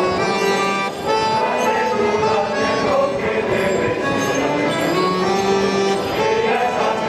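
Men's choir singing with accordion accompaniment, a steady piece of traditional music.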